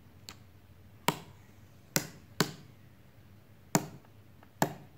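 Protective plastic film being picked at and peeled off a foot massager's plastic control panel, giving six sharp, irregularly spaced clicks and crackles.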